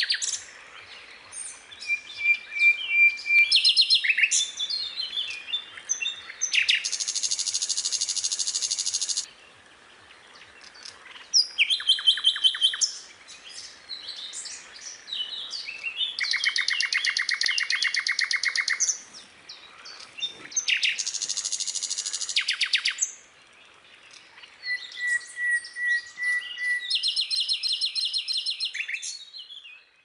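Several songbirds singing: fast, rattling trills of two to three seconds each recur every few seconds, between short varied chirping phrases, and twice a thin level whistle is held for about a second.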